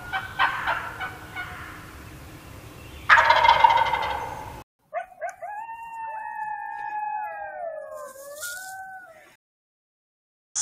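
A wild turkey gobbling, its loudest rattling gobble about three seconds in. Then coyotes howl together for about four seconds, long wavering howls overlapping and gliding up and down, before they cut off.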